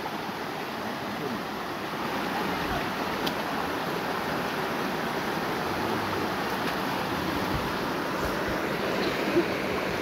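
Shallow stream running over rocks: a steady wash of flowing water, a little louder after about two seconds.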